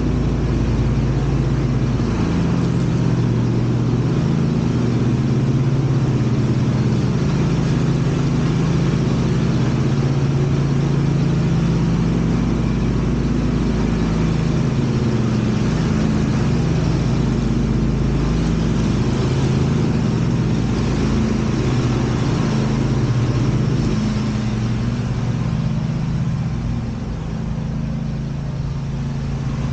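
Lawn mower engine running steadily under load while the yard is cut, its pitch wavering slightly, growing a little quieter near the end.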